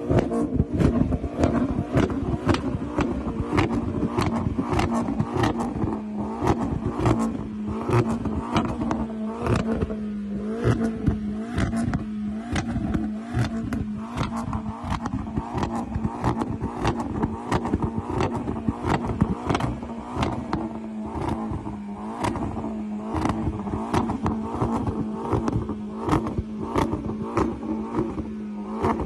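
Vauxhall Corsa VXR engine revving with a steady stream of sharp pops and bangs from the exhaust, about two a second, as an aftermarket flamer kit ignites fuel in the tailpipe and shoots flames.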